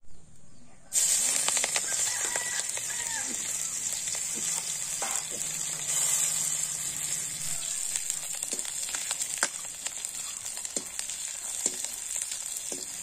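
Sliced onions dropped into hot oil in a steel karahi, sizzling from about a second in, with the clicks and scrapes of stirring in the pan.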